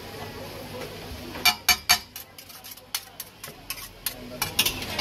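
Two metal spatulas clanking and scraping against a flat iron griddle as chow mein noodles are tossed and mixed. Sharp clinks come in short clusters, starting about a second and a half in.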